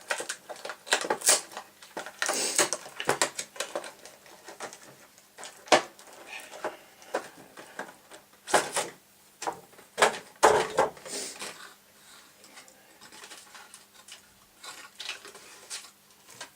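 A 120 mm case fan's cardboard and plastic packaging being opened by hand: irregular rustles, scrapes and sharp clicks, with a faint steady hum underneath.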